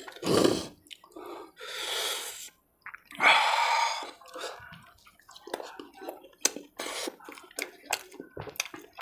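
Fingers squelching and clicking in a thick mutton curry as puri is torn and a rib piece is picked out, with many short wet ticks in the second half. Before that come three loud, breathy rushes of noise.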